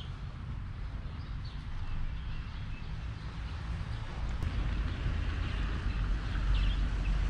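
Outdoor ambience: a steady hiss with a low wind rumble on the microphone that grows near the end, and a few faint bird chirps.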